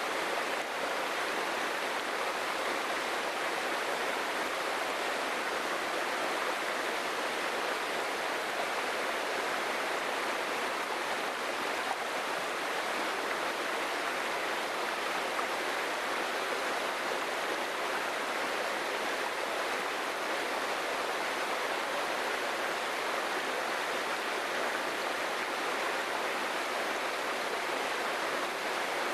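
Small jungle waterfall splashing steadily: an even, continuous rush of falling water.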